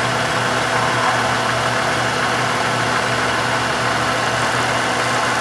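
Milling machine spindle running steadily while an end mill takes a light finishing pass, about three thousandths deep, along the side of a laminated wood banjo neck blank: a steady machine hum with cutting noise.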